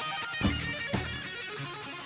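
Instrumental music led by guitar, with plucked and strummed notes, a sharp hit about half a second in and another at about one second, over a steady ticking beat.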